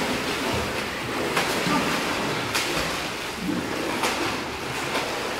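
Pool water splashing steadily as divers in scuba gear thrash at the surface, with a few sharper splashes.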